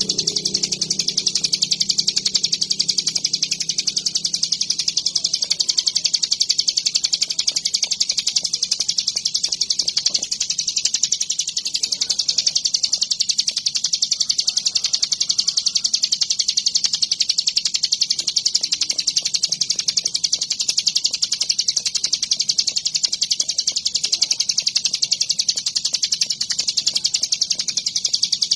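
Ciblek gunung, a prinia, singing a continuous, very rapid, high-pitched chattering song without a break, steady in loudness throughout.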